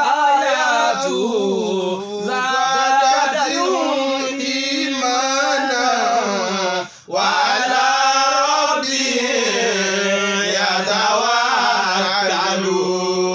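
A man's voice reciting a Quranic verse in a melodic chant, with long held, gliding notes and one brief breath pause about seven seconds in.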